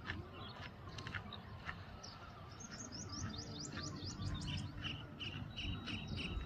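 Small birds chirping. About halfway through comes a quick run of high rising chirps, followed by a steady string of shorter chirps about three a second.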